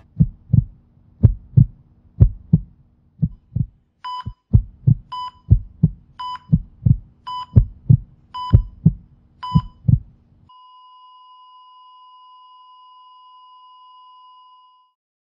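Heartbeat thumps in lub-dub pairs, joined by a heart monitor beeping about once a second. Then the beeping and the heartbeat stop and the monitor gives one long continuous flatline tone, the signal of cardiac arrest.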